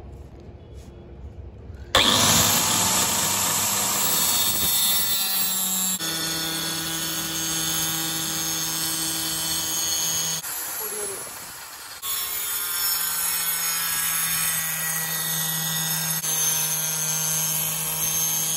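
Hand-held electric circular saw with a toothed blade cutting through plywood: a steady high motor whine over the rasp of the cut. It starts suddenly about two seconds in and drops off briefly in the middle before cutting again.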